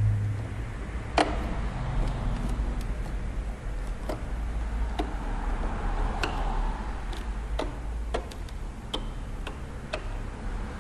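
Sharp, irregularly spaced clicks, roughly one a second, of a security screwdriver turning out a PlayStation 3 security screw, over a steady low hum.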